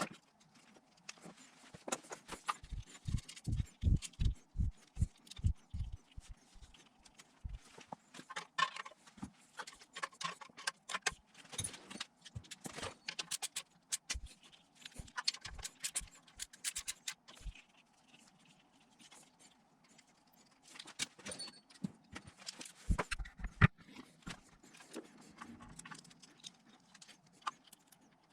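Engine wiring loom being handled and fitted by hand: scattered clicks, taps and rattles of its plastic connectors and clips against the engine, with a quick run of dull thumps a few seconds in and another short cluster near the end.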